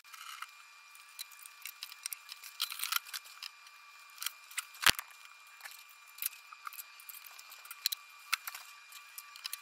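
Fast-forwarded, pitched-up sound of a closet being cleared out by hand: a rapid patter of rustles, clicks and knocks as objects are moved, over faint steady high tones, with one sharp knock about five seconds in.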